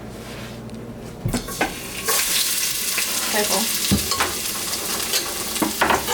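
Minced garlic dropped into hot olive oil in a pot, sizzling from about two seconds in, with a few knocks against the pot.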